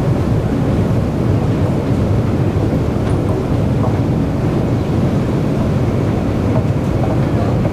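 Metro station escalator running: a steady low mechanical rumble from the moving steps and drive.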